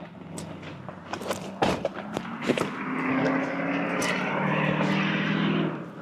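Car sounds: a few clicks and knocks as an SUV door is opened, then a steady vehicle hum that grows louder about halfway through and cuts off suddenly just before the end.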